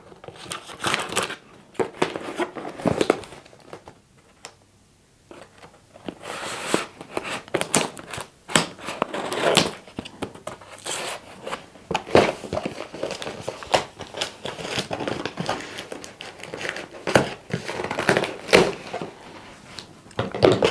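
A cardboard shipping box being opened by hand: irregular tearing, crinkling and rustling of the box and its packaging, with a quieter pause about four seconds in.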